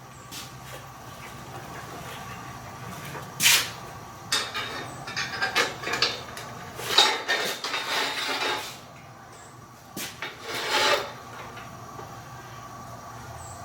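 Knocks, clunks and rattles of metal hardware being handled on a camera boom as a monitor is fitted to it. There is one knock about three and a half seconds in, then a busy stretch of handling lasting several seconds, and a last short flurry near eleven seconds.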